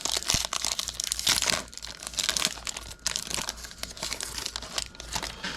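Foil hockey card pack being torn open and crinkled by hand, dense irregular crackling that is loudest in the first couple of seconds and quieter after.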